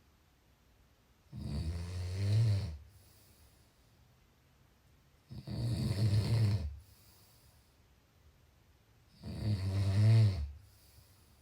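Snoring in sleep: three long snores about four seconds apart, in a steady breathing rhythm, with faint breaths out between them.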